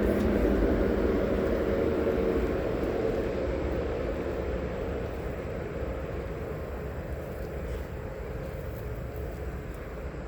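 A passing vehicle's steady rumble, slowly fading away as it recedes.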